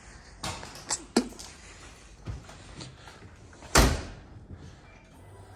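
Pickup truck door being handled and slammed shut about four seconds in, with a few lighter clicks and knocks before it.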